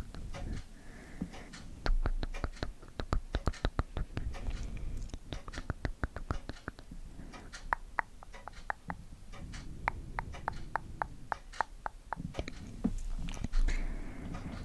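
Close-miked ASMR trigger sounds: rapid, irregular sharp clicks and taps, several a second.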